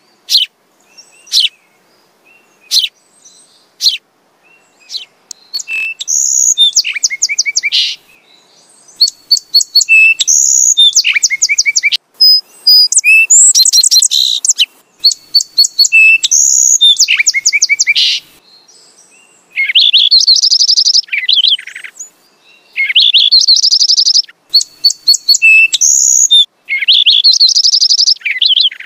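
House sparrow chirping: a few single sharp chirps, then bursts of quick, rapidly repeated chirps with short pauses between them.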